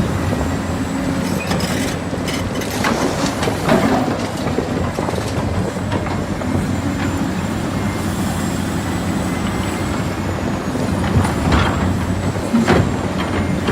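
Diesel engine of heavy construction machinery running steadily under work, with several short metallic clanks and knocks, a few of them close together near the start and two more near the end.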